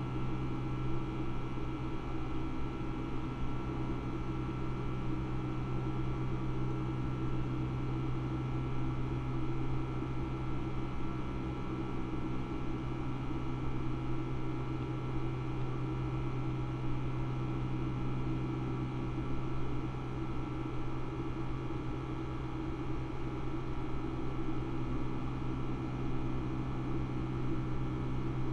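Boeing 757-200 engines and airflow heard inside the passenger cabin during the climb after takeoff: a steady drone with a strong low hum and an even rush of noise.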